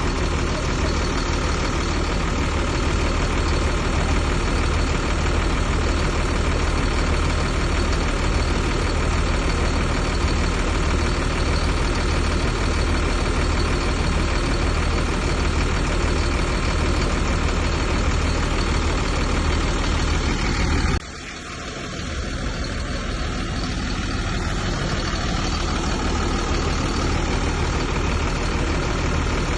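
Heavy earthmoving machine's diesel engine running steadily with a deep hum. About two-thirds of the way through the sound drops suddenly and builds back up over a few seconds.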